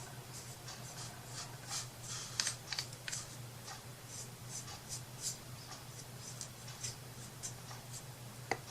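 Faint, irregular scratching and rustling strokes from craft materials being handled and worked, over a steady low electrical hum; a small sharp click near the end.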